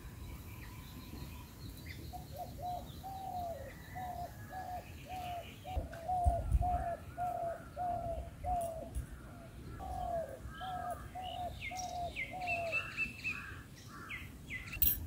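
A bird calling a long run of short, evenly spaced hooting notes, about two a second, for some ten seconds, while smaller birds chirp higher toward the end. A low thump or handling noise about six seconds in, and a sharp click near the end.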